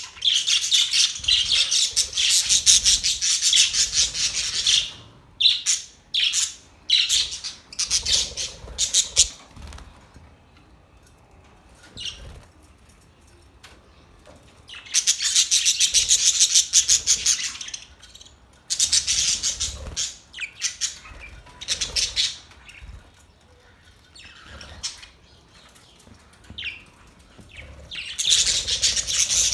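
Budgerigars chirping and chattering in loud bursts of rapid high calls, with quieter stretches of a few seconds between the bursts.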